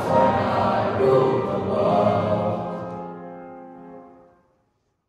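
A large choir of schoolboys singing, ending on a long held chord that fades away about four seconds in.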